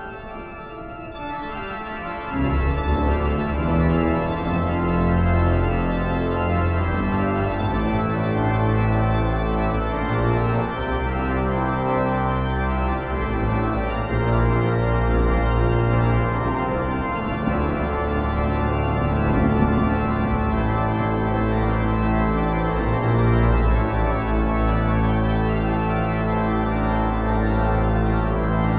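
Epic cathedral organ music: sustained, slowly changing chords over deep held bass notes, coming in loudly about two seconds in.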